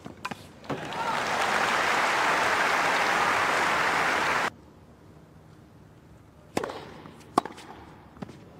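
Tennis ball struck by rackets a few times as a rally ends, then stadium crowd applause for about three and a half seconds that cuts off suddenly. After a quiet lull, two sharp racket hits on the ball less than a second apart as the next point is played.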